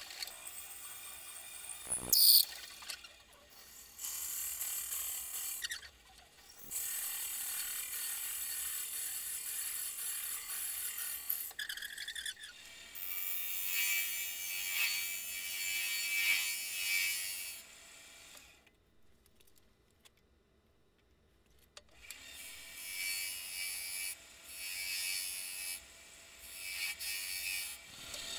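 Wood lathe drilling and boring into a spinning wooden spindle, sped up: high-pitched scraping and chattering in stretches broken by short cuts. There is a sharp knock about two seconds in, and a few seconds of near silence about two-thirds through.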